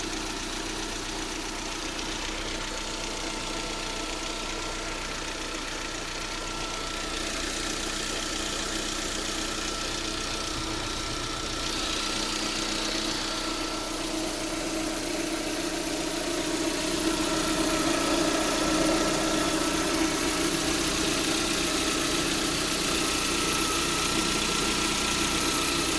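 Lada Priora's 21126 1.6-litre 16-valve four-cylinder engine idling with a steady high whistle over the running, which the owner suspects comes from the alternator, possibly its bearing. The sound gets louder in steps about a quarter of the way in and again past halfway.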